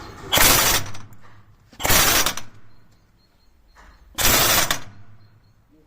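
Impact wrench run in three short bursts of about half a second each, hammering as it drives a guide tool to press a silent block (rubber-metal suspension bushing) into a trailer suspension.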